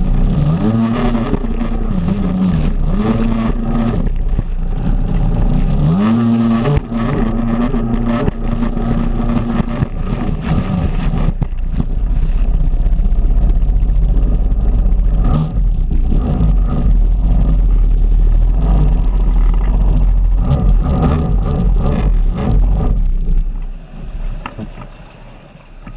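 Stand-up jet ski engine running hard, its pitch rising and falling several times in the first ten seconds and then holding steady, with water spray and wind on the microphone. The engine sound falls away near the end as the ski slows.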